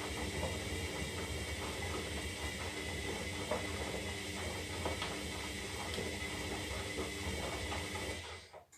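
Zanussi Lindo 300 washing machine turning its drum during the wash phase of a synthetic cycle: a steady motor whine with many small irregular knocks of laundry and water tumbling inside. The drum stops abruptly near the end, a pause in the wash's back-and-forth tumbling.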